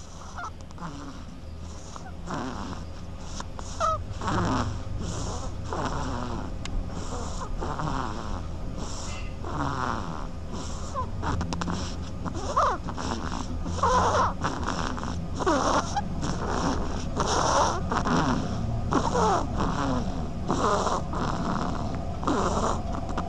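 Duckling snoring: short snores repeated about once a second, getting louder over the first few seconds.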